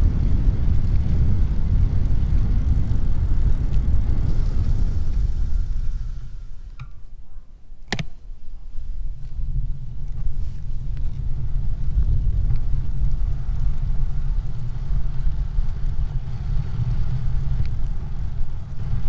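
Steady low rumble of wind and road noise on a moving vehicle's microphone. It eases off about six seconds in as the vehicle slows. A single sharp click comes about eight seconds in, and then the rumble builds again.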